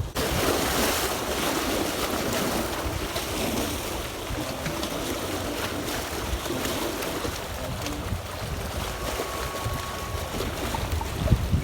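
Strong wind blowing over the microphone: a steady rushing with low rumbling buffets, over the wash of the sea.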